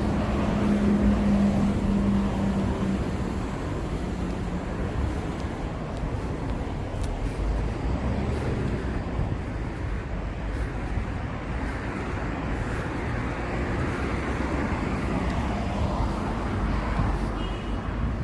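Street traffic: a steady wash of cars passing on the road. A passing vehicle's engine hum fades out in the first few seconds.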